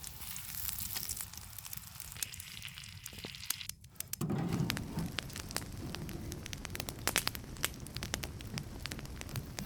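Campfire crackling, with frequent sharp pops over a steady hiss; the sound changes abruptly about four seconds in.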